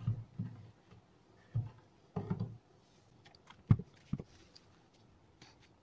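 Irregular knocks and clicks of a small electric motor and parts being handled and fitted inside a wooden press frame. The loudest is one sharp click about three and a half seconds in.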